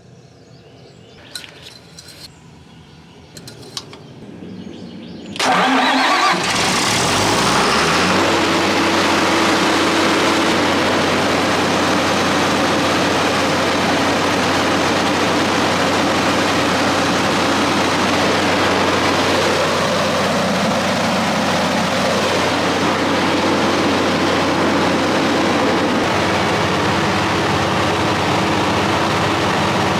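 Large irrigation-pump generator engine starting: a few clicks, then about five seconds in it fires with a sudden loud onset and quickly runs up to full throttle. It then runs steadily at speed.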